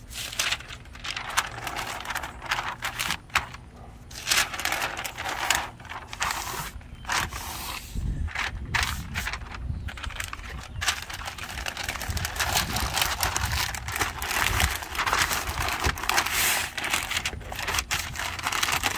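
Pink butcher paper rustling and crinkling in irregular bursts as it is folded and tucked tightly around a rack of ribs by gloved hands.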